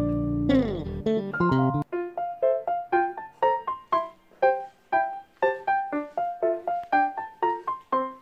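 Background music: a held chord that gives way after about two seconds to a quick, repeating melody of short notes.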